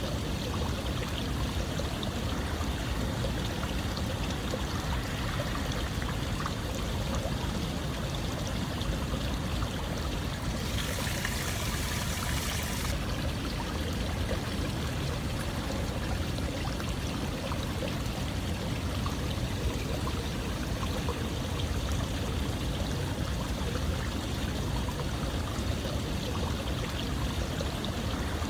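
Running water flowing steadily, like a stream. A brighter, hissier patch lasts about two seconds near the middle.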